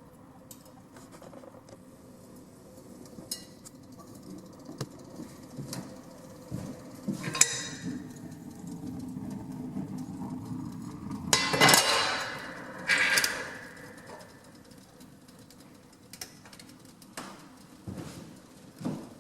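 Metallic clinks and knocks, with a low rumble building underneath and two loud rattling, scraping bursts a little past the middle.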